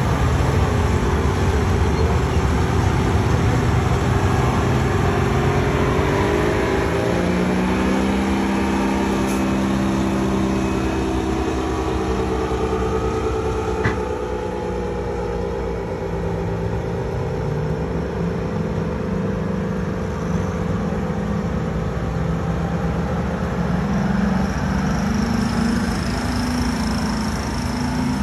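Berliet mining dump truck's diesel engine running as the truck is driven, its pitch sinking about seven seconds in and rising a little near the end.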